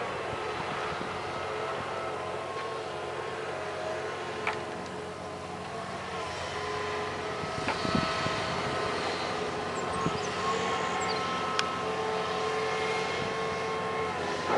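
John Deere excavator's diesel engine running steadily, with several held tones that shift slightly in pitch. A few sharp knocks stand out, about four, eight and twelve seconds in.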